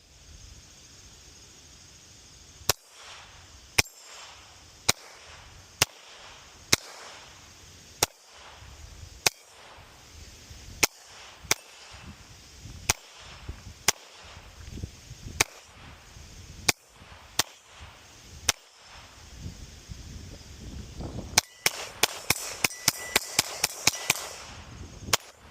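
Kel-Tec CP33 .22 LR pistol being fired: single shots about a second apart, then a fast string of shots near the end. Wind noise on the microphone underneath.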